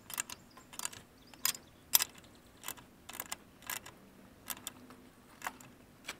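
Irregular light metal clicks and ticks, about two a second, as a nut and bolt are handled and fitted on a go-kart's muffler mounting bracket.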